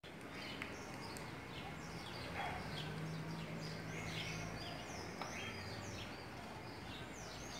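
Small birds chirping in quick, repeated short notes over a steady low background hum, with a few faint clicks.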